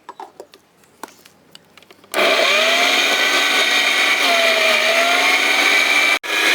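A few clicks and knocks, then an Indian mixer grinder (mixie) switches on about two seconds in and runs loud and steady, grinding mint leaves, its motor pitch sagging and recovering under the load. The sound drops out for a moment just before the end.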